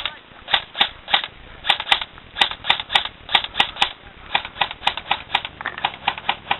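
Airsoft gun firing a string of quick single shots, about three to four sharp pops a second, the first one the loudest.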